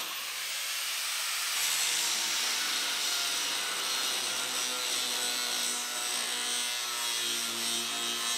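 Power grinder running steadily against steel, a continuous gritty hiss over the motor's hum, enlarging drilled-out spot-weld holes in a rusty frame rail.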